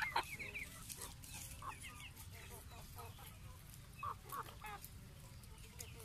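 Chickens clucking, with short calls scattered all through, over a low steady rumble.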